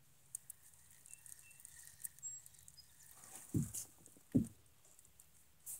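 Faint scattered clicks and rustles, with two low, short thumps a bit under a second apart near the middle and a few faint high chirps.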